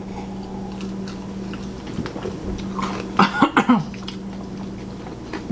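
A person coughing, a short cluster of three or four coughs about three seconds in, over a steady low hum.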